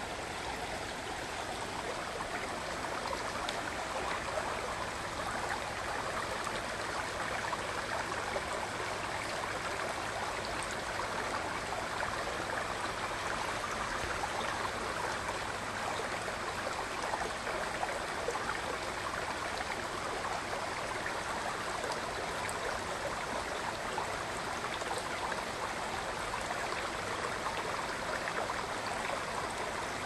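Shallow, rocky mountain creek babbling over stones and small riffles: a steady, even burble of running water.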